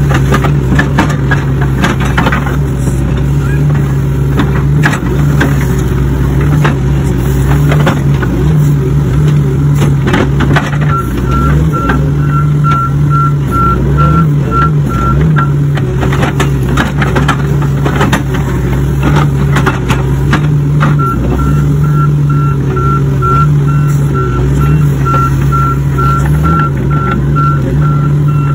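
Excavator's diesel engine running steadily under load, with the steel bucket knocking and scraping through soil and roots. A high warning beeper sounds about three times a second in two stretches, from about eleven to fifteen seconds in and again from about twenty-one seconds until near the end.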